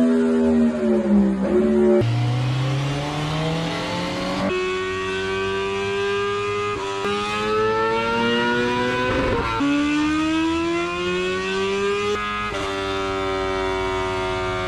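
Motorcycle engine under load on a dyno, revving with a steadily rising pitch that drops back several times and climbs again.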